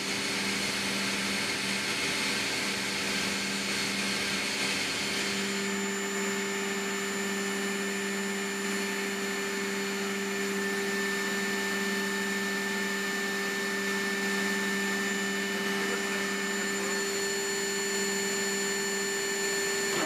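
Steady machinery drone and whine inside an MV-22 Osprey's cabin: several constant tones over an even hum. The sound shifts slightly about five seconds in, and a higher tone joins about halfway through.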